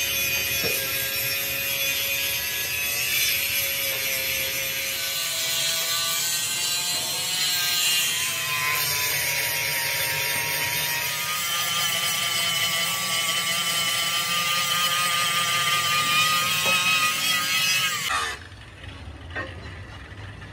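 Handheld angle grinder grinding the weld seams down on a thick steel rim plate, its motor pitch wavering as it is pressed into the metal. It cuts off near the end.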